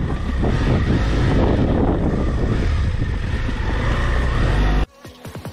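Heavy wind buffeting on the microphone over a motorcycle engine idling, the BMW F700GS's parallel twin. Near the end it cuts off abruptly into an electronic whoosh.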